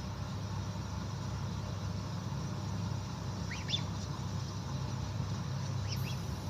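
A bird gives a few short, high chirps twice, once around the middle and again near the end, over a steady low hum.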